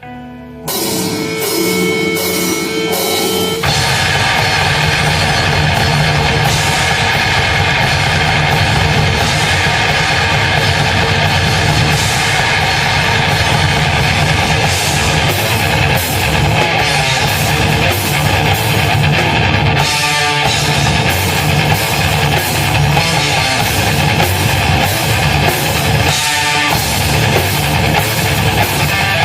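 Heavy metal band playing live: the song opens with a few seconds of held notes, then the drums and full band come in loud about three and a half seconds in and play on steadily.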